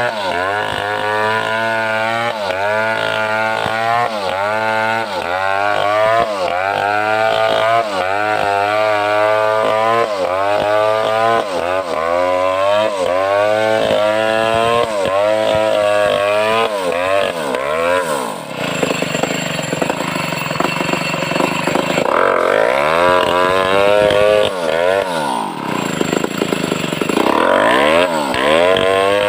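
Clone Stihl 070 two-stroke chainsaw running under load while cutting wood, its engine pitch rising and falling about once a second. In the second half come two spells of harsher, denser cutting noise.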